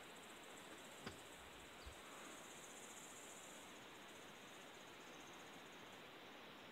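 Near silence with faint, high-pitched insect chirring that comes and goes in pulsing stretches, and one small click about a second in.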